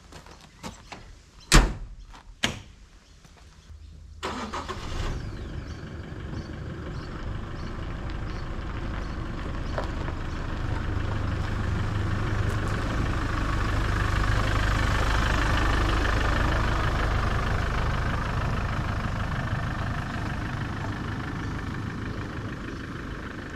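Two sharp slams as the Toyota Hilux is shut, the first the loudest. About four seconds in its engine starts, then runs, growing louder as it pulls away and easing off near the end.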